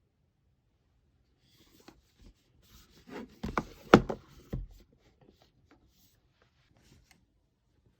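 Objects being handled: a cluster of rubbing, clicks and knocks about two to five seconds in, the loudest a sharp knock near the middle, then a few faint ticks.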